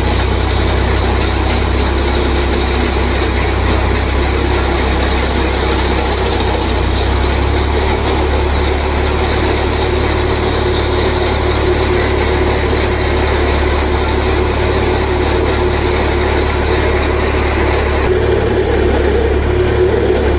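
Farm tractor's diesel engine running steadily, driving a tractor-mounted post hole auger boring into the soil; the tone shifts slightly near the end.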